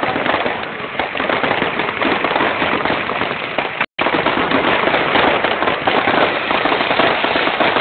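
Fireworks display: dense, continuous crackling and popping from spark fountains and bursting shells. The sound drops out for an instant about four seconds in.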